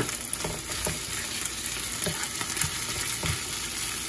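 Shredded chicken and bamboo shoots sizzling in hot oil in a frying pan, stir-fried with a wooden spatula that scrapes and knocks against the pan several times over the steady sizzle.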